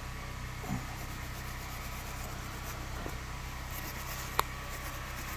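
Steady low mechanical hum, with one sharp click a little past four seconds in.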